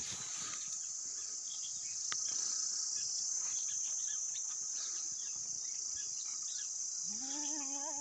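Steady high-pitched chirring of insects, with scattered faint rustles and clicks in dry grass. Near the end a goat gives one wavering bleat, about a second long.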